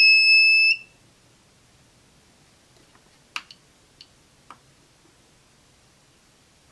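Xantrex ProWatt SW 600 inverter beeping as it is switched on after repair: a steady high-pitched beep that cuts off less than a second in. A few faint clicks follow a few seconds later.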